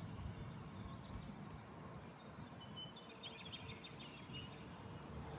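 Faint birds chirping in short quick trills over a low background rumble.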